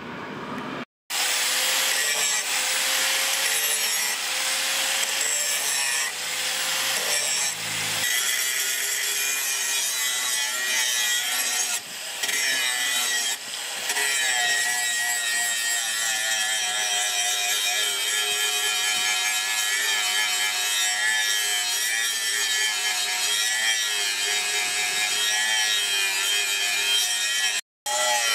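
Electric angle grinder with an abrasive disc grinding a steel machete blade. It starts about a second in and runs on, its whine wavering as the disc is pressed against the steel, with two brief dips about twelve and thirteen seconds in.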